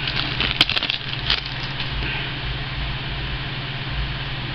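A few sharp crackles from a trading-card pack wrapper being opened in the first second or so, over a steady low hum and hiss that runs on after the crackles stop.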